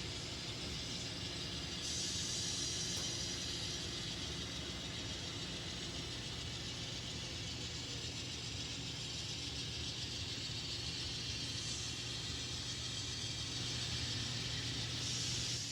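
N scale model train running on the layout: a steady whir of the locomotive motors and the rolling of wheels on the rails, with no decoder sound. The rolling hiss grows louder about two seconds in and again near the end.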